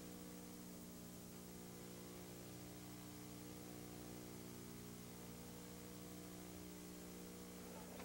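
Near silence: a faint, steady electrical hum with hiss in the recording.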